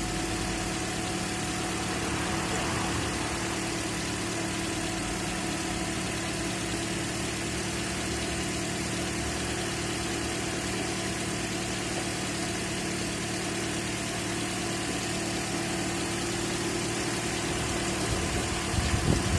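Heavy machinery engine idling steadily with an even hum, kept running to circulate coolant through the radiator while it is flushed.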